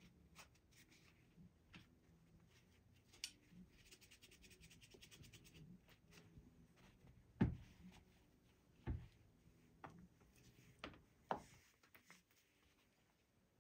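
Quiet handling sounds while cleaning a Colt Frontier Scout .22 revolver: faint rubbing and a quick run of fine ticks about four to six seconds in, then a handful of knocks, the first and loudest about seven seconds in.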